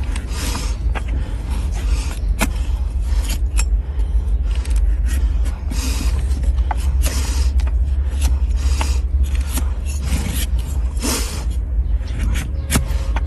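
A broad flat hoof-paring blade shaving horn off a donkey's hoof, in repeated short scraping strokes, over a steady low rumble.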